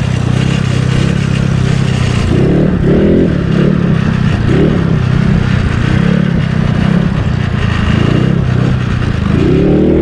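Yamaha Mio scooter's single-cylinder engine revving hard under throttle for a wheelie attempt, its pitch surging up and down, with a sharp rising rev near the end.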